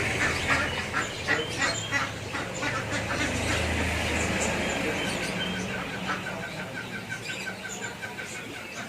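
Shop birds calling and chattering, many short overlapping calls. About five seconds in, a quick regular run of short chirps follows, several a second, over a low hum that fades out midway.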